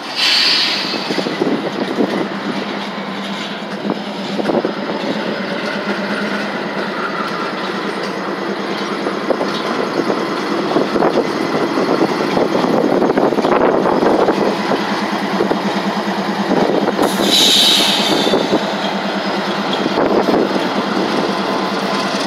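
Double-stack intermodal freight train rolling past: a steady rumble and clatter of wheels on the rails, growing louder through the middle. There are two brief high squeals, one right at the start and one about three-quarters of the way through.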